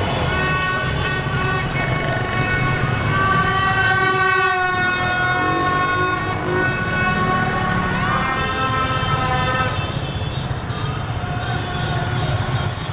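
Celebratory horn-blowing in heavy motorbike traffic: many horns blare at once in long overlapping held tones, over a steady rumble of engines and traffic.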